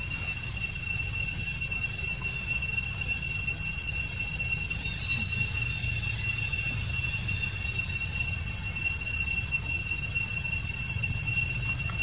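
Steady, high-pitched insect drone with higher overtones, holding unbroken, over a low rumbling noise.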